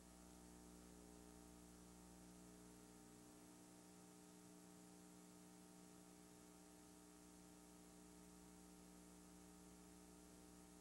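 Near silence with only a faint, steady electrical mains hum and its overtones, the audio track having dropped out on a damaged stretch of VHS tape.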